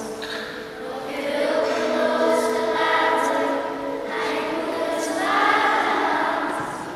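Children's choir singing together in long held notes, swelling louder twice.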